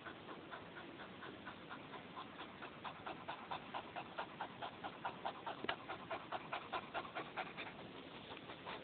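Cocker spaniel panting in quick, even breaths, about five a second, growing louder in the middle and easing off near the end.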